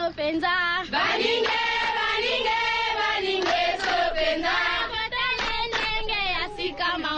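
Recorded African-style choral chant music: several voices singing together in wavering held notes, with sharp percussive hits.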